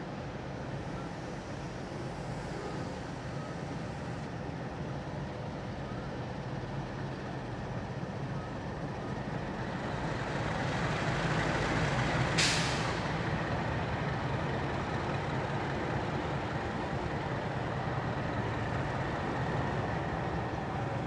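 Diesel locomotives at the head of a freight train running as they creep toward the platform, their engine sound growing louder as they near. About twelve seconds in comes one short, sharp hiss of air from the train's brakes.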